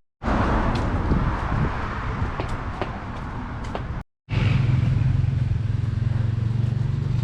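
City street noise with a motor vehicle's engine running. The sound drops out briefly at the very start and again about four seconds in. After the second dropout a steady low engine hum is the loudest thing.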